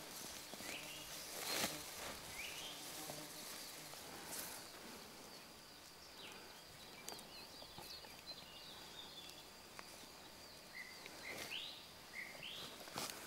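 Quiet outdoor field ambience: birds chirping now and then, a faint steady high whine, and a few brief rustles and soft knocks of someone moving through wheat and setting a cane cross into the ground.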